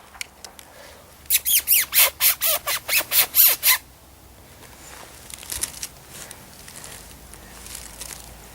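Psycho Tweety predator mouth call blown in a fast run of about a dozen sharp, high squeals, each dropping in pitch, imitating a distressed bird. Faint rustling follows.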